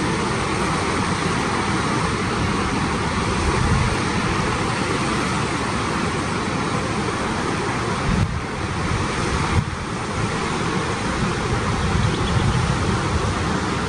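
Creek water rushing and splashing down a rocky cascade, a steady hiss with a low rumble that rises and falls.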